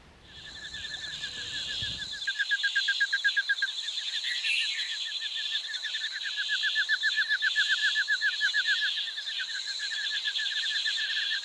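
Rainforest insect chorus: several high, steady buzzing and trilling layers, one a rapid pulsing trill that swells and fades in waves. A low rumble underneath stops about two seconds in.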